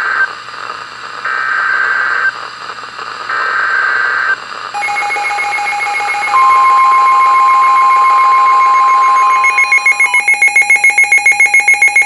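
NOAA Weather Radio emergency alert coming through Midland weather radios: three short bursts of screechy digital alert-header data, then a receiver's steady alarm tone and the long steady weather-radio warning tone, with a rapid pulsing alarm beep joining near the end. It signals an incoming Severe Thunderstorm Warning.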